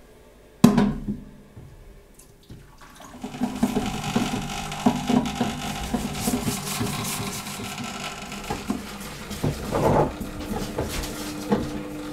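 Cleaning liquid pumped through a parts washer's brush, running and splashing in the tub as a brush scrubs greasy engine parts. There is a sharp knock just under a second in, and the liquid sound starts about three seconds in.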